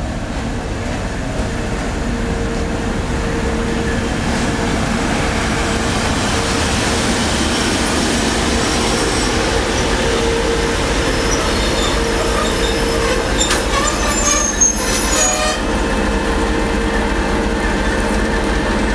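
TEP70 diesel locomotive rolling slowly past with its passenger coaches, its V16 diesel engine running and growing louder as it comes alongside. About two-thirds of the way in come brief high-pitched squeals from the braking wheels and a single sharp knock as the train slows for the stop.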